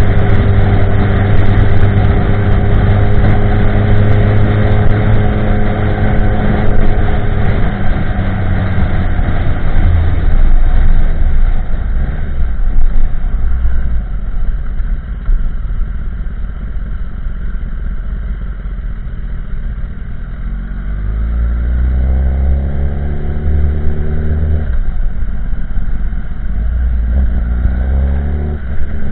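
2016 Kawasaki ZX-10R's inline-four engine through a Pro Race GP-R2 de-cat carbon exhaust, first cruising at steady revs, then easing off. In the second half it accelerates, the pitch rising through the gears with a sharp drop at each upshift.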